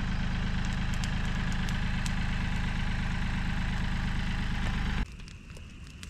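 An engine idling steadily, which cuts off abruptly about five seconds in, leaving faint crackling.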